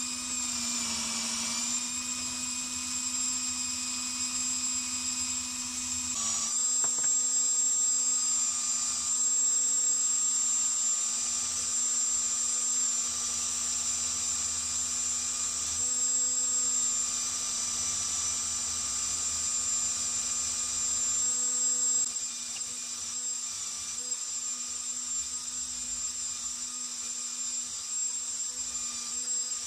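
Cordless drill running at a steady speed and spinning a buffing wheel, a constant motor whine, while a steel spanner is pressed against the wheel to polish off rust.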